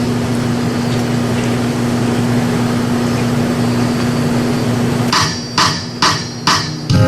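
Steady low hum and hiss, then about five seconds in four sharp, evenly spaced clicks about half a second apart: a drummer's stick count-in just before the band starts playing.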